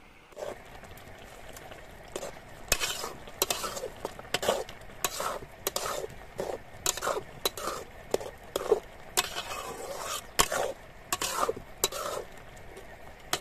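A metal spatula stirring colocasia (arbi) leaves in a metal kadai, with irregular clinks and scrapes against the pan, about two a second, starting some three seconds in. The leaves sizzle softly in the pan underneath.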